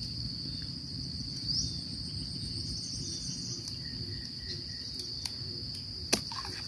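Steady high-pitched drone of insects, with a single sharp knock about six seconds in.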